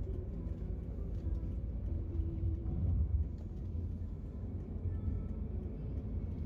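Steady low rumble of a moving road vehicle, heard from on board: engine and road noise, with a faint steady hum above it.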